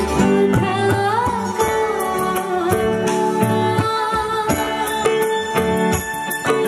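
A woman singing a song live into a microphone over a band accompaniment with steady instrumental chords and regular percussion strokes.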